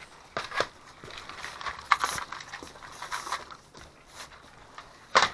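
Dogs eating from bowls: irregular clicking, crunching and clattering of kibble and bowls, with one sharp, loud knock near the end.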